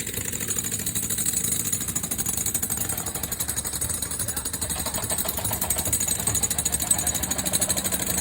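Construction machinery running with a fast, steady pulsing, like a powered hammer or compacting machine working concrete.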